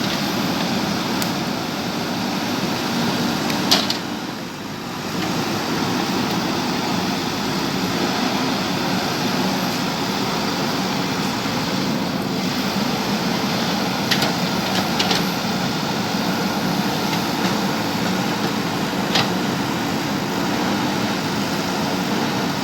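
Backhoe loader's diesel engine running steadily, briefly dipping a few seconds in. A few sharp knocks sound over it, about a third of the way in and twice near two-thirds.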